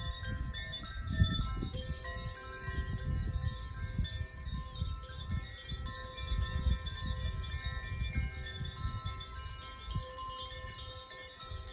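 Hand-played tuned wind chimes: many clear, sustained notes ringing and overlapping as new strikes keep coming. Underneath runs a gusty low rumble, likely wind on the microphone.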